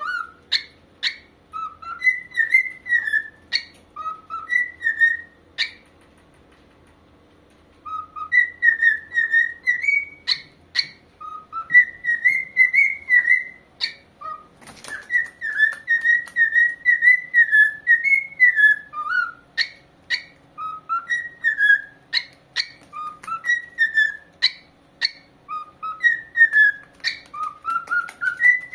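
Pet corella whistling a tune in phrases of short, clear notes that glide up and down, with a few sharp clicks between them. It pauses for about two seconds a quarter of the way in, then carries on.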